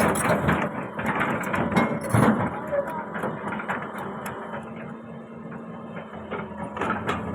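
Machine engine running steadily at a low hum, with irregular clanks and knocks that are busiest in the first two seconds or so.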